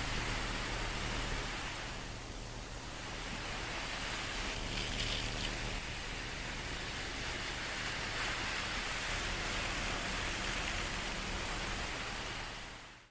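Steady rushing noise over a low hum, swelling and easing gently before fading out quickly at the end.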